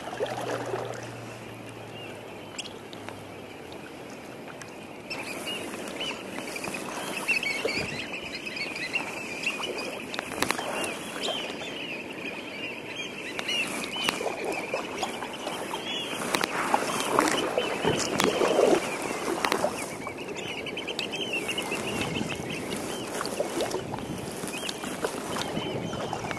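A large flock of waterbirds calling all at once, a dense chorus of overlapping calls that starts about five seconds in, with kayak paddle strokes splashing in the water.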